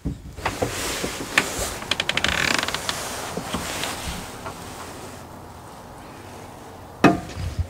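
Clicks and a quick rattle from a truck camper's screen door handle and latch as the door is opened, followed by a steady rush of outdoor noise and one sharp knock about seven seconds in.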